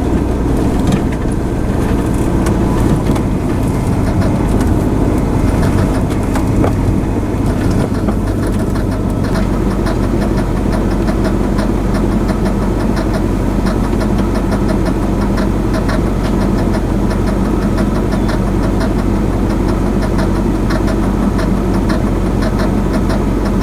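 A motor vehicle driving, with steady engine and road noise.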